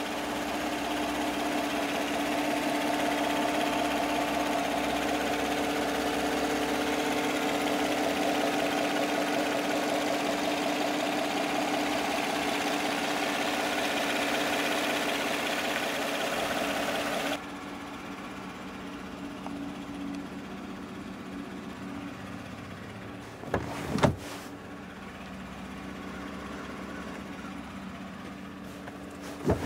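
2014 Chevrolet Silverado 1500's V6 engine idling steadily with the hood open. About two-thirds of the way through it drops suddenly to a quieter steady hum, and two sharp knocks follow, the second near the end.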